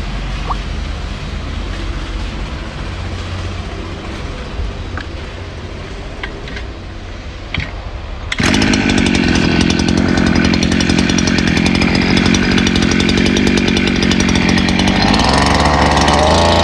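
Brush cutter's small petrol engine idling, then opened up to high revs about eight seconds in and held there steadily, easing back near the end. The engine is new and still warming up, and the cutting head now spins without the slipping noise.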